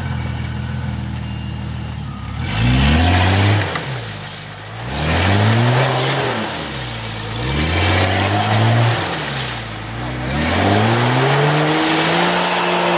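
A Jeep Cherokee's engine revving up and dropping back four times in a row, the last rev held longest, while the stuck 4x4 tries to drive out of deep snow. Its wheels are spinning and throwing snow.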